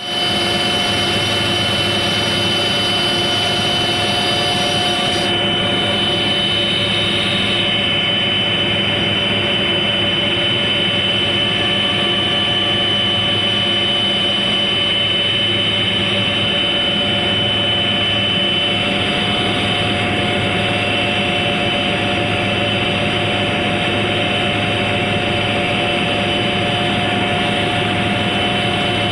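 Aircraft engine noise heard from on board: a loud, steady drone with several held tones, unchanging throughout.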